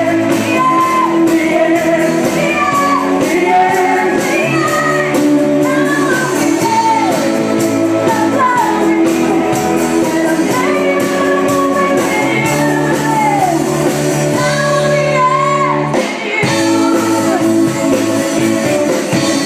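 Live band playing a pop-rock song with sung vocals over drum kit, bass guitar and keyboard, with a short break about three-quarters of the way through.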